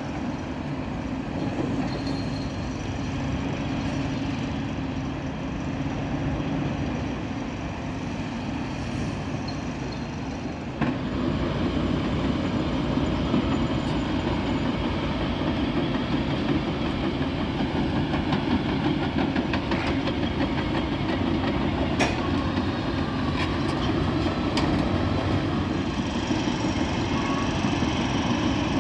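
Heavy machinery running with a steady rumble and rattle that steps up in loudness about eleven seconds in, with a few sharp knocks later on.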